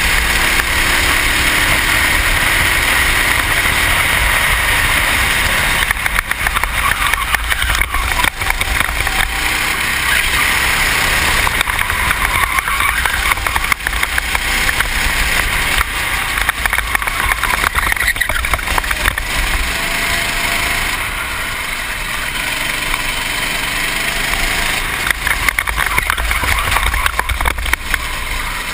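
Racing kart engine running hard on track, heard from a helmet-mounted GoPro with a loud rush of wind and rough buffeting over the microphone. The noise eases off for a few seconds about twenty seconds in.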